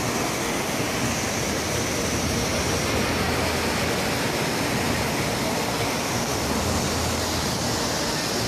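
Muddy floodwater rushing in a torrent down a street: a steady, even rushing noise that does not let up.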